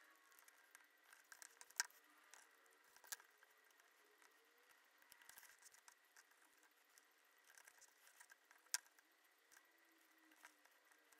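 Near silence with faint rustling of small cardstock pieces being handled and pressed down by hand. Three sharp clicks stand out, the loudest about two seconds in and near nine seconds in.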